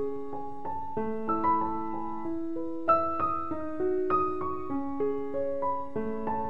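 Background piano music: a gentle melody of single notes struck two or three a second, each left to ring over held lower notes.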